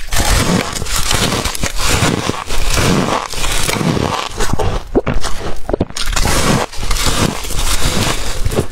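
Close-miked biting and chewing of packed freezer frost: a steady run of loud crunches, one bite after another, with short squeaks as the frost is compressed between the teeth.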